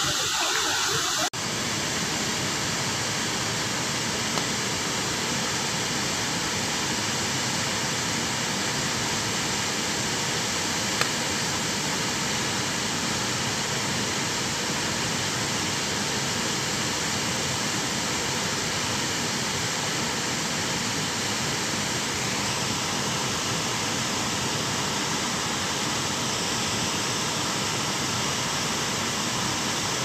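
The steady, even rush of a tall multi-tiered waterfall, unbroken, starting abruptly about a second in.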